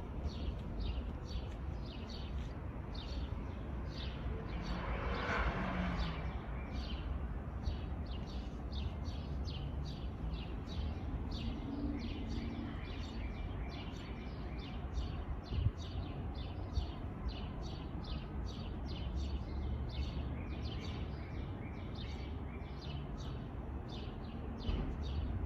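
Small bird chirping over and over, about two to three short high chirps a second, above a steady low rumble.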